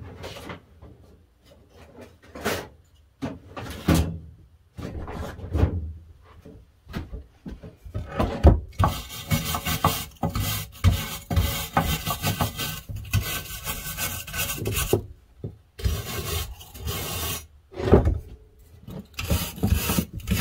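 A hand wire brush scrubbing rust off the cast-iron leg joints and screws of an andiron, in long spells of quick scratchy strokes after a few knocks of the metal being handled.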